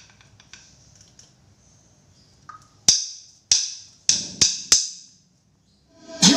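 Five sharp percussive clicks in a quick rhythm, two spaced evenly and then three faster, each ringing out briefly. A song's music with singing starts near the end.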